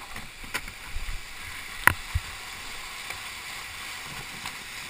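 Rushing whitewater of a small, shallow rapid, a steady hiss, with a few sharp knocks from a plastic kayak bumping over rocks; the loudest comes a little under two seconds in.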